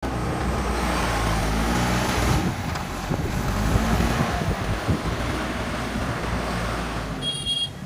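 JCB 3DX backhoe loader's diesel engine running steadily under work, with a few knocks and clanks. A brief high-pitched tone sounds near the end.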